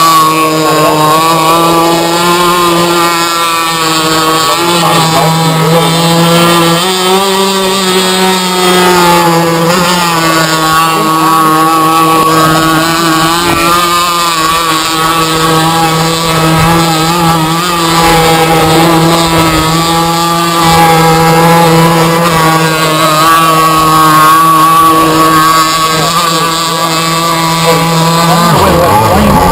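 Small two-stroke RC boat engine running loud and steady at a fast idle, its pitch wavering slightly and stepping up a little about seven seconds in, while its needle valves are being tuned; its owners judge the mixture still a little rich.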